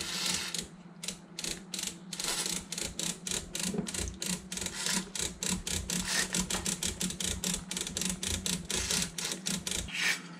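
Rotary selector switch of a Marantz 2015 receiver being turned back and forth through its detents, a rapid run of clicks several a second, as it is worked to spread DeOxit contact cleaner over its contacts. The clicking stops near the end.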